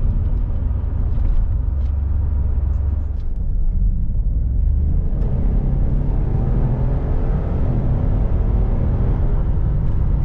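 Ford Expedition's twin-turbo 3.5-litre EcoBoost V6, running on a Whipple upgrade, driving on the road. The engine note dips about three and a half seconds in, then rises again as it pulls harder.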